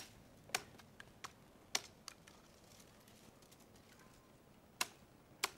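A billhook chopping a bundle of thin green stems on a wooden chopping block: several sharp knocks, irregularly spaced, with a pause of about two seconds in the middle.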